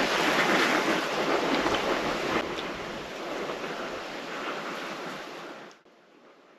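Wind rushing, a loud hiss at first that eases off, then cuts off suddenly near the end, leaving only a faint background.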